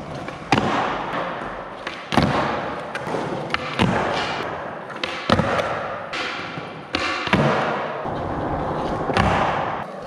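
Skateboards rolling on a smooth concrete floor, with about seven sharp clacks of boards being popped and landed in flatground tricks, spread every second or two.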